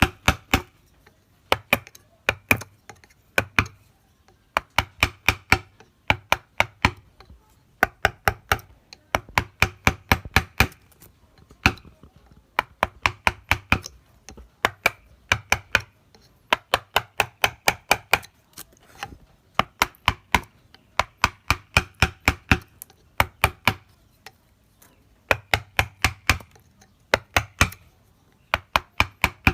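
A wood-carving chisel or gouge driven by quick mallet taps, in runs of sharp knocks about six a second with short pauses between runs.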